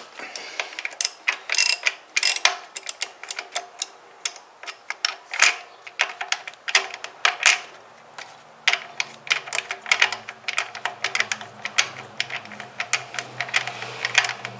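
Ratchet wrench clicking in quick runs of strokes as a 22 mm socket unscrews the PCV valve from the valve cover of a Toyota 2AZ-FE four-cylinder engine.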